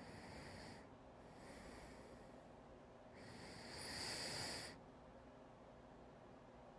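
Faint breathing of a person who has the hiccups: three audible breaths, the last, about three seconds in, the loudest and longest.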